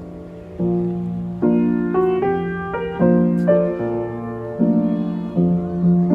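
Gentle background piano music, soft chords struck about once a second.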